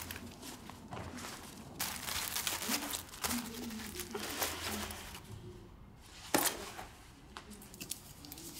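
Cloth and a bag rustling and crinkling as clothes are handled and packed, in several bursts, with one sharp click about six seconds in.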